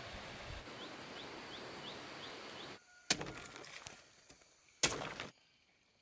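Steady outdoor background noise with six short, faint rising chirps, which cuts out about three seconds in; two sharp knocks follow, about a second and a half apart, the first the louder.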